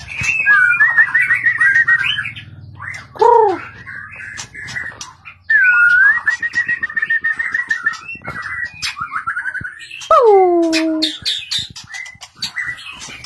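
White-rumped shama singing a varied song of quick note runs and trills, broken by two long whistles that slide downward, one about three seconds in and one near ten seconds.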